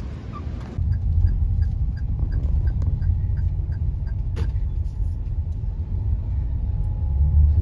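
Car running: a steady low rumble of engine and road noise sets in about a second in, with faint regular ticks about three a second and a single sharp click a little past the middle.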